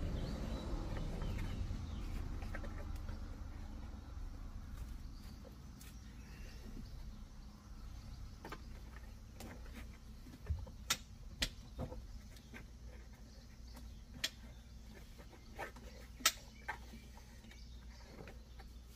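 Low steady hum with a handful of sharp clicks and taps from hand work, bunched about ten to twelve seconds in and again a few seconds later, the loudest near the end.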